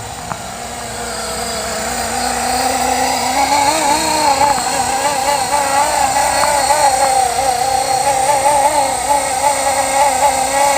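Blade SR electric RC helicopter in flight, its motor and rotor whine wavering up and down in pitch as the load shifts in the gusts; it grows louder about two seconds in.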